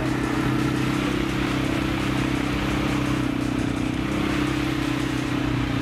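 ATV engine running at a steady speed as the quad is ridden along a muddy trail, heard from the seat.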